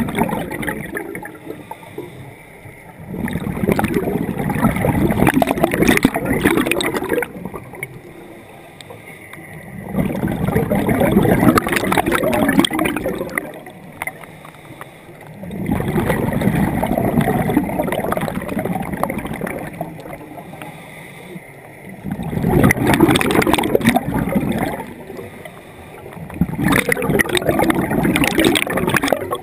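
Scuba breathing through a regulator, heard underwater: loud gurgling bursts of exhaled bubbles about every six seconds, five in all, with quieter gaps for the inhalations between.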